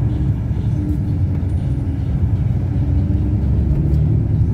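Steady low engine and road rumble heard from inside a moving vehicle, with a faint engine hum on top.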